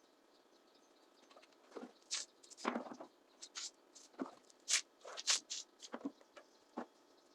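About a dozen short, irregular scraping or brushing strokes, one a little longer, starting about a second and a half in.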